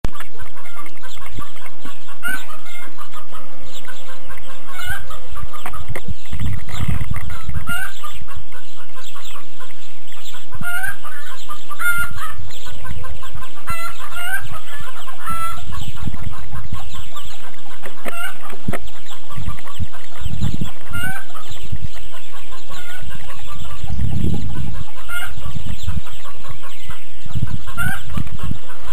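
Chickens clucking off and on in short rising calls, with intermittent low rumbles mixed in.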